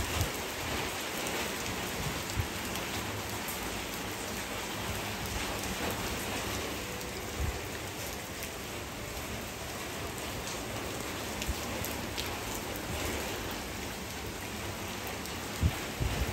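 Steady rain falling on wet paving and puddles, with scattered sharper drips. There are a few low thumps, the loudest one near the end.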